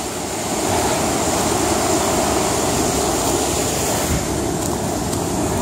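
Steady rush of a fast-flowing, foaming river.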